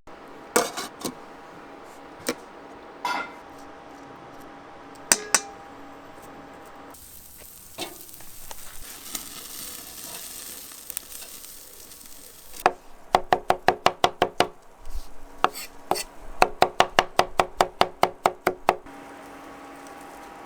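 Barbecue cooking sounds: a soft sizzle with scattered sharp metal clicks. In the second half come two runs of quick, ringing taps, about seven a second, like a metal utensil tapping against a pan or grill.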